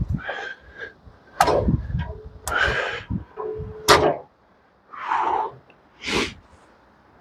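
Irregular knocks, thuds and scrapes of a heavy timber cant being turned and handled on a manual bandsaw mill's bed, with two short squeaks.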